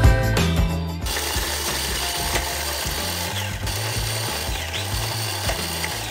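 Food processor motor starting about a second in and running steadily, grinding cookies into a crumb powder.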